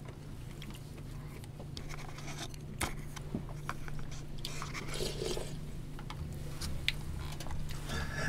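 Quiet eating sounds: scattered small clicks of a spoon in a plastic soup container, with chewing and short soft slurps, over a steady low hum.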